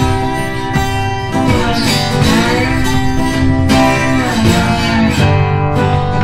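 Background music led by acoustic guitar, steady throughout.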